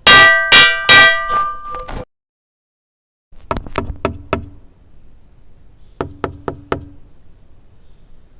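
Three loud ringing metallic strikes that cut off abruptly, then two rounds of four quick knocks.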